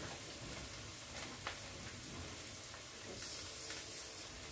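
Chopped onions sizzling steadily in olive oil in a frying pan, with two small clicks a little over a second in.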